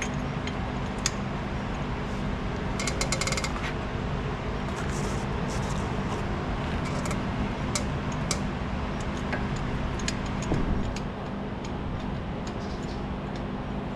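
Metal clinks and light knocks of a brake caliper and hand tools being handled during a front brake job, with a quick run of rattling clicks about three seconds in. A steady low hum sits underneath.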